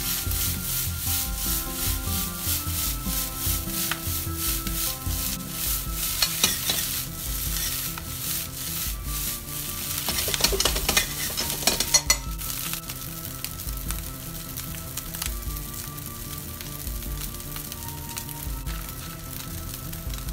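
Fried rice sizzling in a hot frying pan as it is tossed and stirred with a spatula. Repeated scraping strokes run for about the first twelve seconds and are loudest just before they stop, then the sound settles to a steady sizzle.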